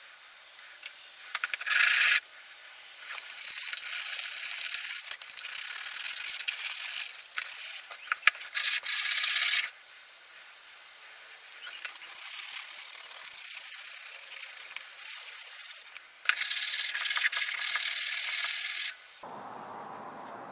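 The cast-iron frog of a Stanley Bailey No.5 plane rubbed back and forth on sandpaper to clean off rust, a gritty scraping in long stretches with short pauses and a few sharp clicks. About nineteen seconds in it cuts abruptly to a steady low hiss.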